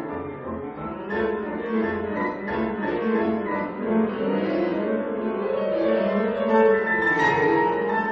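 Instrumental background music, a run of melodic notes with some held tones near the end.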